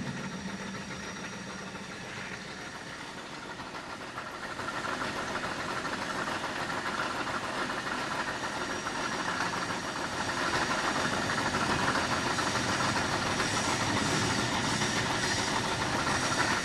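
Heavy workshop machinery running: a steady mechanical hum and hiss with faint high whines, growing louder about five seconds in and again about ten seconds in.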